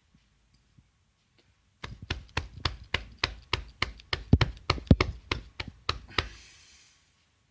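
A rapid run of about twenty sharp knocks, four to five a second, lasting some four seconds, followed by a brief hiss.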